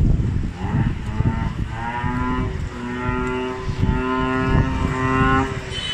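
A vehicle horn sounds three times, a short blast then two longer ones, each at a steady two-note pitch, over a low rumble of wind on the microphone.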